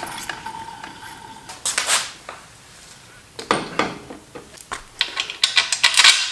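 Metal tools and minibike parts being handled, clinking and knocking, with several sharp clinks close together near the end. At first, a faint steady whir from the minibike's rear wheel spinning freely on its bearings.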